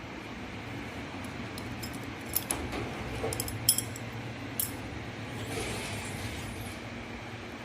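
Steady eatery background hum with a few light clinks of tableware, the sharpest pair about halfway through.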